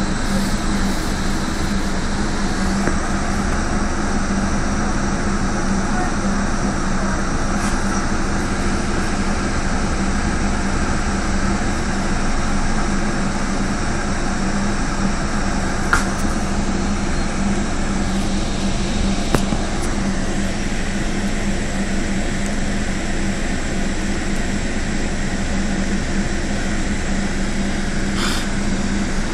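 Scania Omnicity single-deck bus idling at a standstill, heard from inside the cabin: a steady low engine hum and rumble. There are two sharp clicks, one about halfway through and one a few seconds later.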